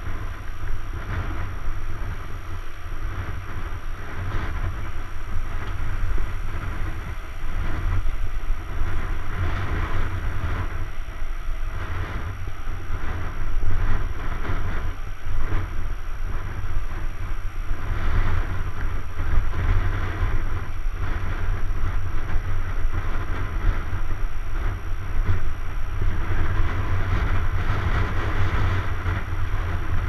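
Steady low wind rumble on a ride-along camera's microphone while a mountain bike rolls along a paved road, with a continuous rattling hiss of tyres and bike parts.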